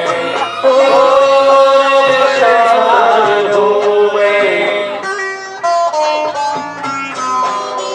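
A song sung into a microphone over plucked-string accompaniment. For about five seconds the voice holds long, wavering notes, then a plucked instrumental passage of short notes takes over.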